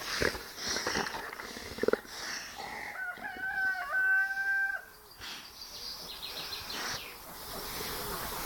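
A rooster crowing once, about three seconds in: a single held call of just under two seconds, rising at the start and dropping off at the end, over faint rustling.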